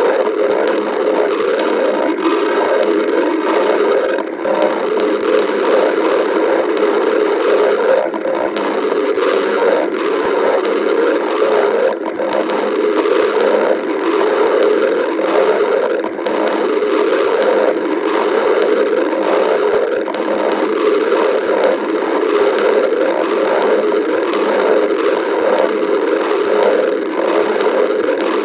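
Stomach growling: a continuous, irregular rumble that swells and dips without pause.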